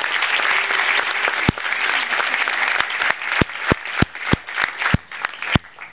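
Audience applauding, dense at first, thinning after about three seconds into scattered single claps, with several louder claps standing out about three a second before it dies away.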